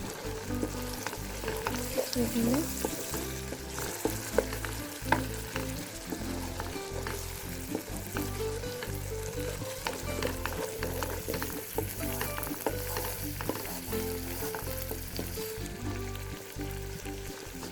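Potatoes, peas and ginger frying in oil in a pot, with a steady sizzle, while a spoon stirs them and clicks and scrapes against the pot.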